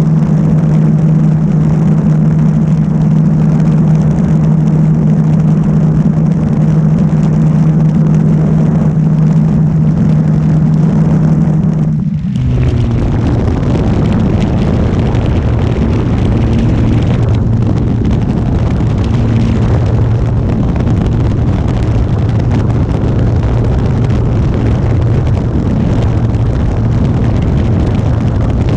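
Electric motor and propeller of a Carbon-Z Cessna 150 RC model plane buzzing steadily in flight. About twelve seconds in the pitch drops suddenly to a lower hum with more rushing noise, a throttle-back.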